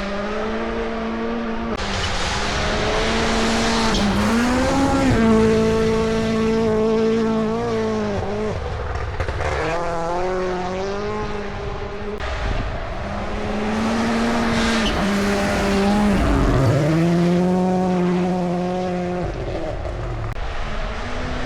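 WRC rally car engine revving hard on a gravel stage, its pitch climbing through the gears and dropping sharply several times as the driver lifts and shifts, with tyre and gravel noise underneath.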